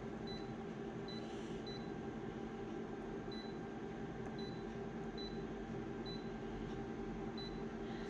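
Steady electrical or machine hum with short, high-pitched beeps about eight times, unevenly spaced.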